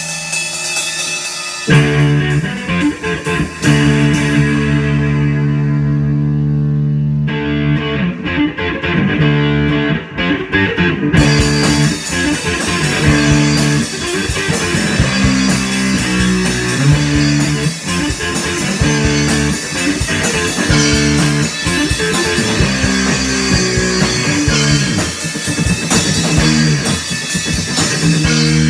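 A guitar and drum kit played together as a rock duo. The guitar comes in with held chords a couple of seconds in, over steady drumming.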